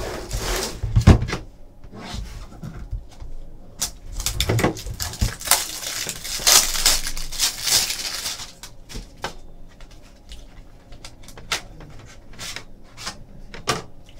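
Loose plastic shrink-wrap crinkling and rustling as a cardboard trading-card box is handled and opened, with scattered light clicks and knocks from the box and a hard plastic graded-card slab.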